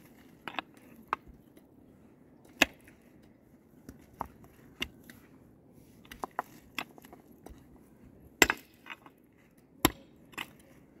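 Mattock-like digging tool striking stony ground, about a dozen sharp irregular chops and knocks as the blade bites into soil and hits stones. The loudest blows come just after two seconds in and twice near the end.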